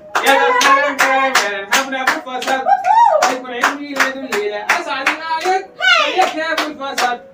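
Several people clapping along in a steady beat, about four claps a second, while voices sing a birthday song over the claps.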